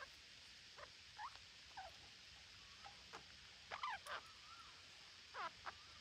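Faint, scattered short calls from a flock of parakeets perched in a tree: single chirps and squawks that slide in pitch, with a louder burst of a few overlapping calls about four seconds in and two more near the end.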